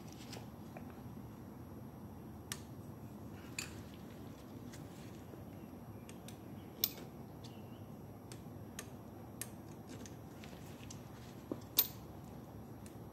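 Scattered small metallic clicks and taps as a long magnetic pickup tool probes the centre of a GY6 scooter's flywheel to fish out a washer. Two sharper clicks stand out, about halfway through and near the end.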